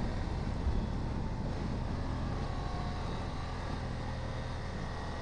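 Honda Africa Twin's parallel-twin engine running steadily under way, mixed with wind and road noise.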